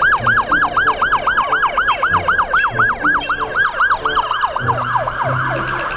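Police siren in a rapid yelp, each wail sweeping sharply down in pitch about five times a second. It speeds up and blurs into a fast warble near the end.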